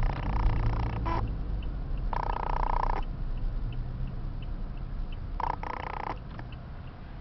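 Car cabin noise from a moving taxi: a steady low engine and road rumble, with a light ticking about every 0.7 s. Three short louder bursts with a steady pitch come near the start, about two seconds in and about five and a half seconds in.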